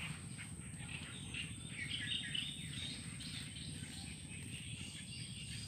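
Outdoor ambience: small birds chirping and twittering, mostly in the first few seconds, over a steady high insect buzz and a low even rumble.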